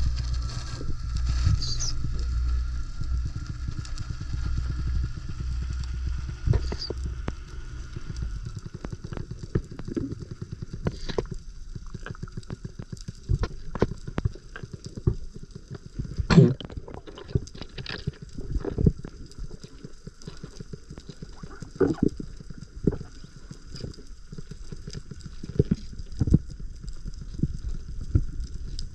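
Underwater sound picked up by a freediver's camera: a low rushing of water for the first several seconds, then scattered sharp clicks and snaps.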